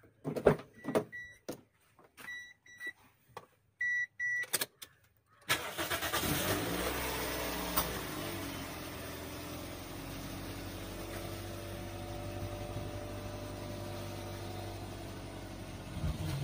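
Toyota Allion 240 car: sharp clicks and three pairs of short high electronic beeps, then about five and a half seconds in the engine starts, its revs falling back over a couple of seconds into a steady idle.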